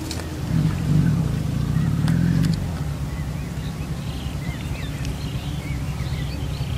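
An engine running with a steady low hum, with small birds chirping from about three seconds in.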